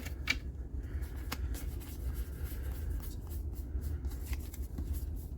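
Trading cards being handled and flipped through one by one, a run of soft papery slides and light ticks, a couple of them sharper near the start, over a low steady hum.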